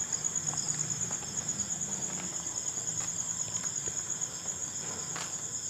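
Crickets chirping in a steady, high-pitched, pulsing trill, with a few faint clicks.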